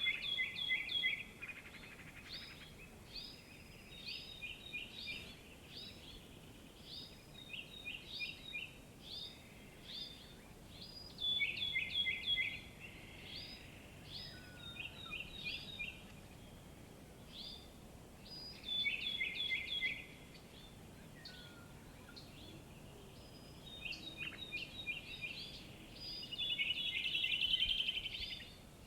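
Birdsong in a morning chorus: a songbird repeats short phrases of quick, sharp falling notes every second or so, over a faint steady background. Louder runs of song come several times, and a rapid trill comes near the end.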